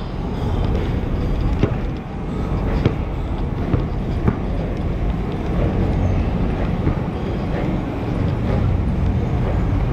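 Steady low rumble of a moving vehicle and surrounding street traffic, with a few faint clicks.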